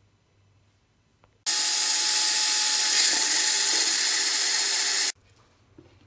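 Single-serve blender motor running, blending a thick mix of yogurt, milk and sponge cake; it starts suddenly about a second and a half in, runs steadily for about three and a half seconds, and cuts off suddenly.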